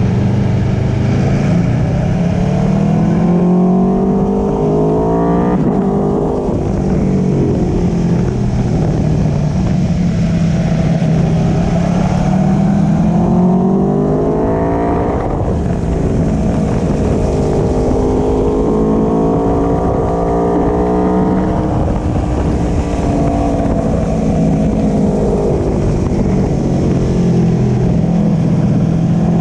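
Aprilia Tuono V4 Factory's V4 engine through an Akrapovic slip-on exhaust, heard from the footpeg while riding. The revs climb and drop sharply twice at upshifts, then hold and ease off before climbing again near the end, with wind noise underneath.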